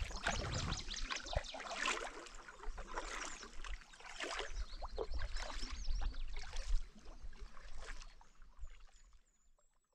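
Small ripples lapping and gurgling right at the waterline, in many short splashy ticks over a low rumble, fading out about a second before the end.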